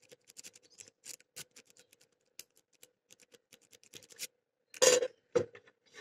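Lock-picking tools clicking and scratching in the keyway of an old Titan padlock, a quick run of small, sharp metallic ticks, with a louder knock of the lock or tools being handled about five seconds in.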